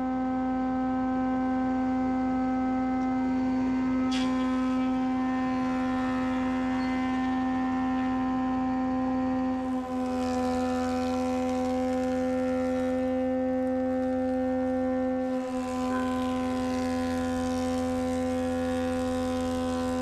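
Thickness planer running with a steady pitched hum, and rougher cutting noise joins about halfway as a black walnut board feeds through.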